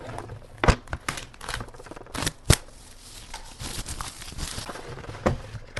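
A soundbar's packaging box being opened and handled by hand: scattered sharp clicks and knocks, with a stretch of rustling and sliding packaging about halfway through.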